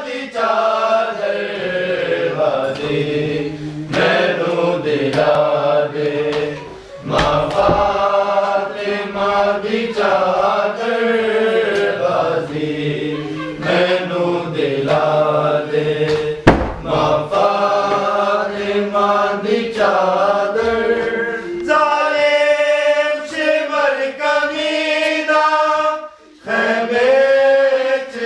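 Men's voices chanting a Punjabi noha, a Shia mourning lament, together in long drawn-out sung phrases with no instruments. A couple of sharp knocks cut in briefly.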